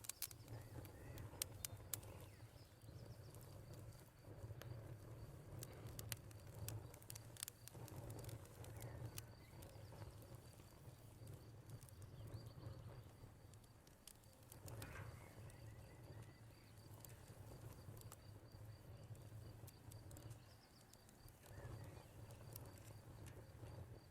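Wood fire crackling with scattered sharp pops over a low rumble, with a cricket's thin high trill that comes and goes and a few bird calls.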